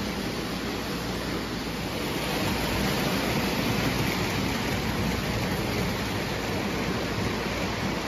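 O gauge model passenger train running on tubular three-rail track: a steady rumble of metal wheels on rail, swelling slightly in the middle as the blue locomotive and cars pass.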